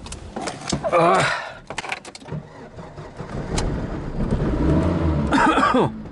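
A few clicks and knocks and a loud, brief whine about a second in. Then the engine of a homemade karakat (low-pressure-tyre all-terrain vehicle) starts and runs, growing louder toward the end.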